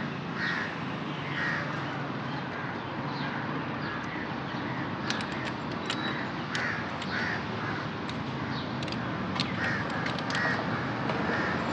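Repeated bird calls, crow-like caws about every half second, over a steady low hum, with scattered sharp clicks from about five seconds in.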